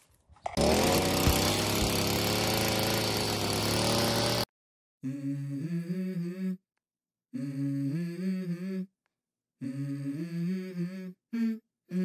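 Petrol brushcutter running at high revs, its engine speeding up about half a second in, then cut off abruptly after about four seconds. It is followed by short phrases of a melody moving in steps with silent gaps between them: the start of a music track.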